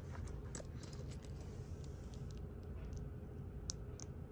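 Faint, irregular light clicks of plastic LEGO bricks being handled and pressed together, with two sharper clicks near the end, over a steady low hum.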